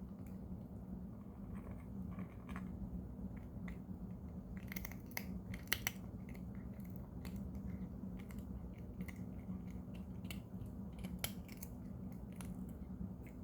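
A cat crunching hard dental treats: irregular sharp crunches as it chews, thickest and loudest about halfway through, over a steady low hum.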